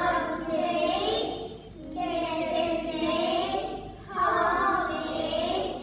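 A group of young children singing together in phrases of about a second, with short breaks between them.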